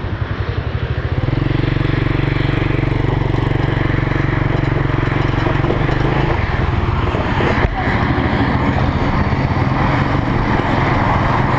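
Quad bike engine running steadily, its tone shifting about six seconds in, with one sharp knock near eight seconds.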